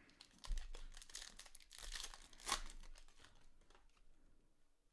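Wrapper of a baseball trading-card pack being torn open and crinkled by hand, in several rustling bursts that fade out toward the end.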